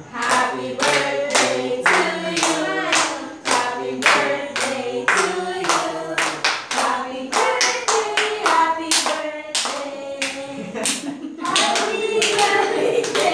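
A small group of adults and children singing together while clapping along in time, about two claps a second.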